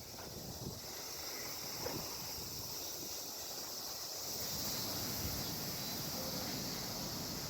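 Strong wind outdoors: wind rumbling on the microphone, growing stronger after about four seconds, over a steady high hiss.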